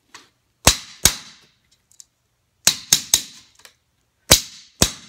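Claw hammer striking a short concrete nail, driving it through a metal carpet gripper transition strip into a concrete subfloor. Seven sharp, ringing blows come in three groups: two, then three quick ones, then two.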